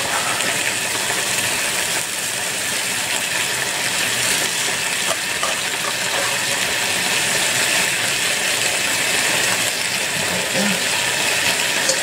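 Stir fry sizzling in a pan: a steady hiss with a few faint pops.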